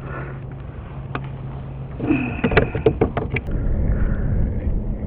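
Steady low motor hum that shifts to a higher pitch about halfway through, over wind rumble on the microphone, with a few sharp clicks and knocks in the middle.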